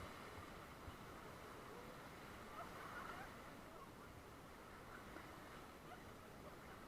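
Near silence: a faint even hiss, with a few faint short chirps scattered through it.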